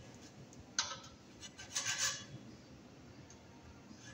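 Hacksaw cutting the metal armour of MC cable: a sharp metallic click about a second in, then one short rasping stroke.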